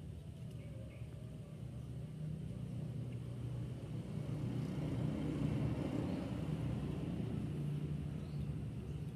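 A low rumble that grows louder toward the middle and eases off near the end.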